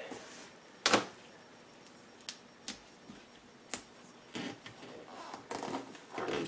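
Handling noise from 3D-printed plastic parts and tape being worked by hand: one sharp click about a second in, a few fainter ticks, then short rustles toward the end.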